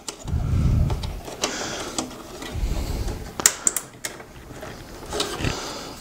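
Heavy breathing close to the microphone, coming in a few bouts, with sharp plastic clicks as a power supply cable connector's small latch is worked loose inside a desktop PC case.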